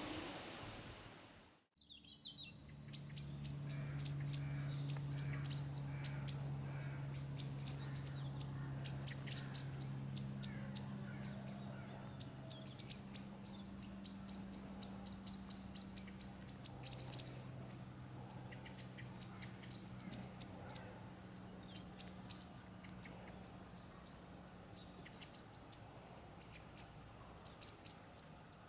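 Small birds chirping in many quick, repeated notes, over a steady low hum that shifts pitch partway through and fades toward the end.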